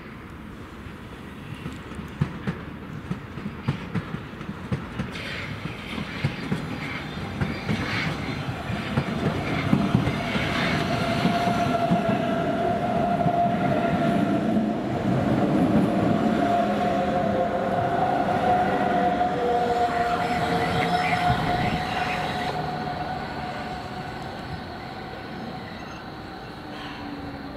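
Hamburg S-Bahn electric train approaching and passing close by, its wheels clicking over rail joints. As it comes near, an electric motor whine rises to a steady pitch, and a second whine slides down in pitch; the train is loudest in the middle and fades near the end.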